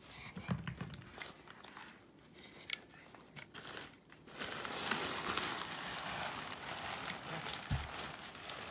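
Plastic and paper packaging rustling and crinkling in short scattered crackles, then from about four seconds in a steady rushing, crinkling noise.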